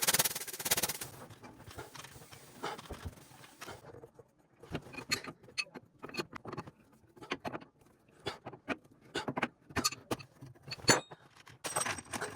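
A rush of noise in the first second, then a string of irregular clicks, taps and clinks, the loudest about eleven seconds in.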